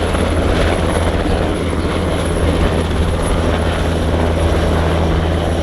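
Military helicopter flying at an airshow display, its rotors and engines giving a loud, steady low drone with a thin high whine above.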